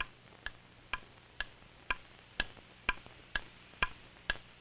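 Clock ticking at an even pace, about two ticks a second, each tick short and sharp with a slight wooden ring.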